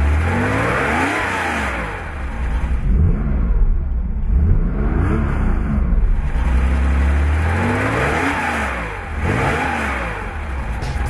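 Porsche 911 S 2.2's air-cooled flat-six engine revving several times, each rev rising and falling back over about a second, with a low steady running note between the revs.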